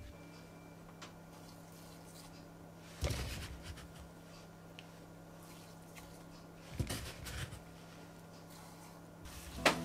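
Quiet kitchen handling sounds over a faint steady hum: a soft knock about three seconds in, then scraping and light clinks around seven seconds, from a metal spoon scooping cane sugar out of a plastic container into a glass mixing bowl.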